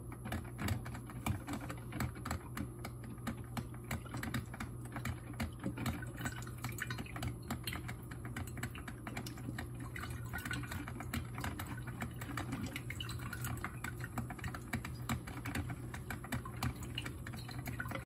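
Drip coffee maker heating and brewing: a dense, irregular run of small crackling pops and clicks over a steady low hum.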